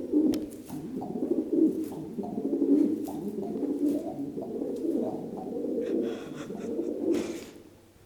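Pet pigeon cooing in a continuous run as it hops on stairs, the coos coming faster as it jumps faster, with short taps along the way; the cooing stops about seven and a half seconds in.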